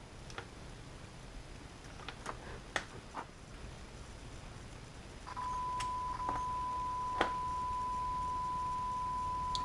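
Small clicks of alligator-clip test leads being handled and clipped on, then about five seconds in a steady 1 kHz sine-wave test tone starts from a 4-ohm loudspeaker as it is connected to the signal generator, with a few more clip clicks over the tone.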